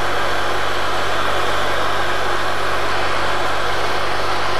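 Cyclone dust collector running: a steady, loud rush of air with a low motor hum.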